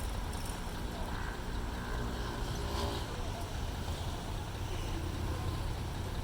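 A steady low engine rumble, with a faint pitched hum running through it for a couple of seconds near the start.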